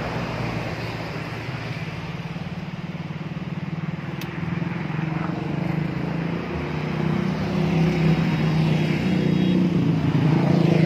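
A heavy diesel vehicle's engine drones steadily and grows louder over the second half as it comes closer, with road noise.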